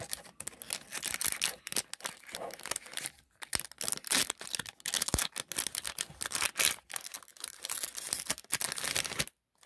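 A foil Yu-Gi-Oh booster pack wrapper being torn open and crinkled in the fingers: a dense, irregular run of crinkling and tearing that stops suddenly near the end.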